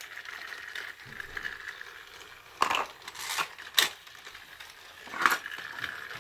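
Hard plastic toy train set pieces being handled: a few sharp clacks and knocks as the plastic volcano balls are set onto the toy volcano, over a faint steady high hum.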